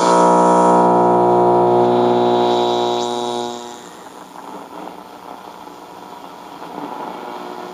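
AM broadcast audio from a Radio Shack 12-795 receiver's speaker: a held musical chord for about three and a half seconds, then the sound drops to a much quieter, hazy murmur.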